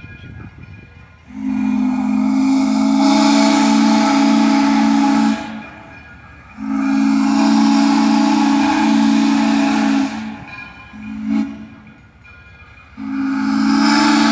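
Steam locomotive's whistle blowing the grade-crossing signal: two long blasts, a short one, then a final long blast still sounding at the end. Each blast is a deep, steady chord with a rush of steam hiss over it.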